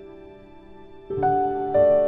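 Background music: slow, soft instrumental with held notes that fade, and new notes struck about a second in.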